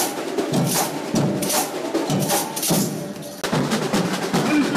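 Samba school drum section (bateria) playing a driving samba beat: deep bass drums under rattling shakers and sharp high percussion. About three and a half seconds in, the sound cuts abruptly to a fuller, denser stretch of the same drumming.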